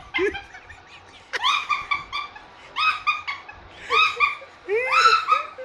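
High-pitched, squealing laughter from a young man in about five breathless shrieks, roughly a second apart.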